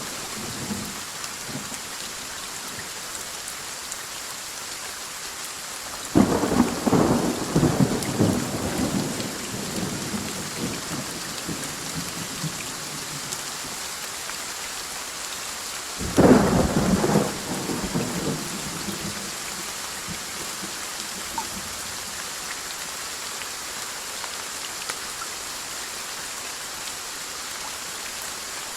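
Steady rain falling, with two thunderclaps: a sharp crack and rumble about six seconds in and a second, louder one about ten seconds later, each rolling away over a few seconds.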